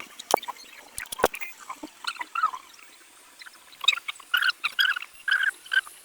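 Soft bubbling and crackling of solder flux heated by a hot-air rework gun while a memory chip is lifted off a phone's logic board, with a few sharp clicks early on.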